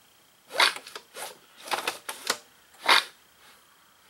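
Push-mower engine's recoil starter rope pulled in about five quick, short strokes, a brief rasp each time, turning the crankshaft over to check it for wobble after straightening.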